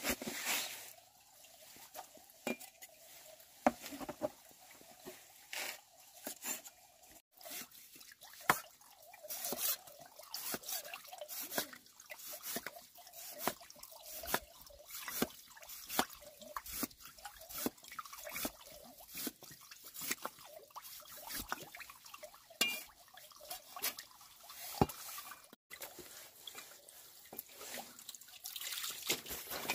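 Cleaver chopping boiled pork fat on a wet wooden chopping board: a steady run of short knocks, about one to two a second.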